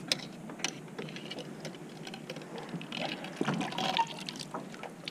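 Lake water splashing and dripping from a landing net as it is lifted out of the water with a bass in it, with a few small clicks and knocks of handling.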